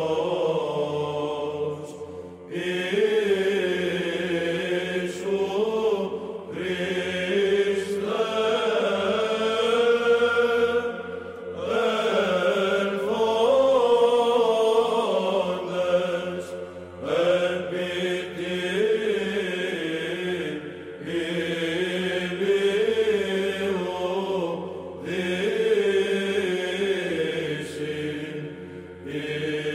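Background Byzantine chant: voices sung in long, slow phrases with short breaths between them.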